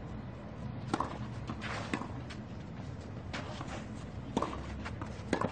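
A tennis rally on a clay court: tennis balls struck by rackets and bouncing, heard as a series of sharp knocks about once a second, over low court ambience.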